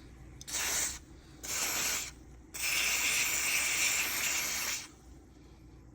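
Aerosol can of carburetor cleaner spraying into a snowblower carburetor's jet passages: two short bursts of hissing spray, then a longer one of about two seconds, flushing out the passages.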